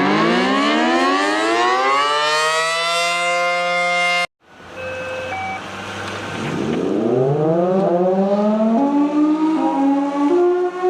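Outdoor tornado warning sirens in two clips. The first winds up and levels off at full pitch, then cuts off abruptly about four seconds in. After a brief low hum, a second siren winds up from a low pitch, and near the end its tone climbs in steps.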